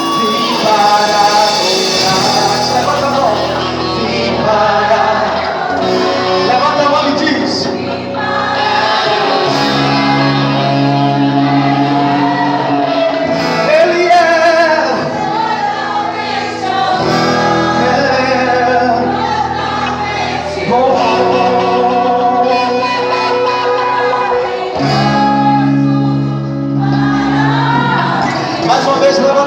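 Gospel worship song: singers over a steady instrumental accompaniment with sustained bass notes.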